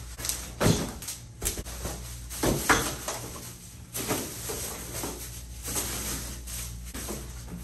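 Irregular knocks, thumps and scrapes of something being handled and moved, with a steady low hum underneath.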